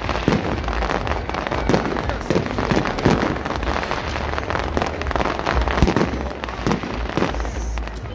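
Aerial fireworks going off: a rapid, uneven volley of overlapping bangs and pops over a constant crackle of bursting sparks.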